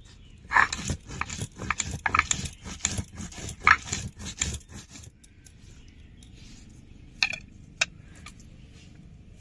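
Spices being ground into a masala paste: a run of irregular scraping, crunching strokes for about five seconds, then two sharp clicks half a second apart.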